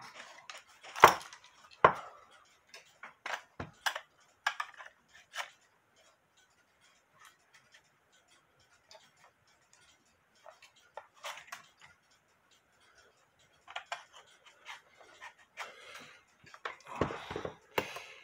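Handling noises from a wooden cuckoo clock case being picked up, turned and set down: sharp knocks and taps, the loudest about a second in and another a second later, then a quiet stretch, then denser rustling and clattering near the end.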